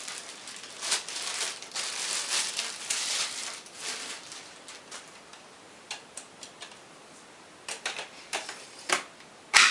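Plastic handle of a Vax Mach Air upright vacuum cleaner being pushed into the top of its body: scraping and rubbing of plastic for the first few seconds, then a string of separate clicks and knocks, the loudest near the end.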